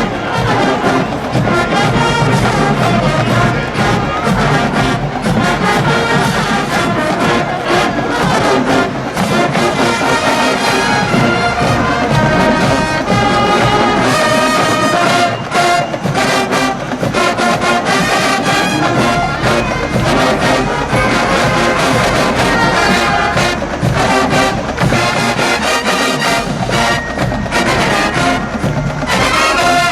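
HBCU-style marching band playing loudly, a full brass section of trombones and trumpets over marching drums.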